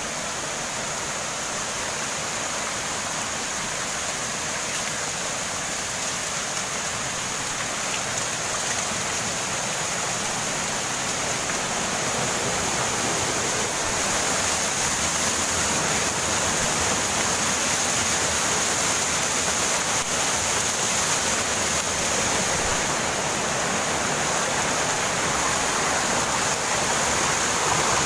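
A small mountain waterfall and its stream rushing over rocks, a steady even sound of falling and splashing water that grows a little louder about halfway through.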